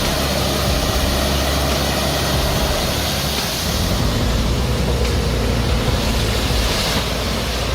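Loud, steady rushing and splashing water with a heavy machine's engine running underneath.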